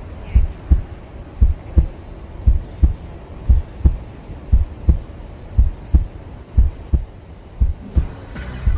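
Heartbeat sound effect: loud paired lub-dub beats, about one pair a second, over a low hum. A rising swell comes in near the end.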